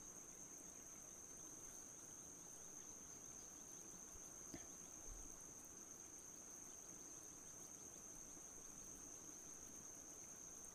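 Faint, steady high-pitched insect chirring, with one soft click about halfway through.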